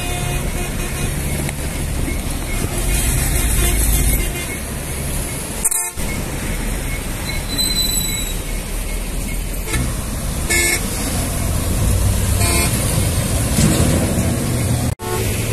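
Heavy coaches and trucks driving past on a highway, a steady rumble of engines and tyres, with several short toots from vehicle horns, the clearest two about ten and twelve seconds in.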